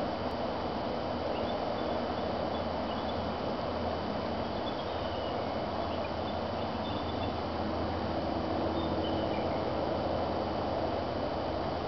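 Bald eagles calling: faint, high, short chittering calls that come and go several times over a steady background rush of noise.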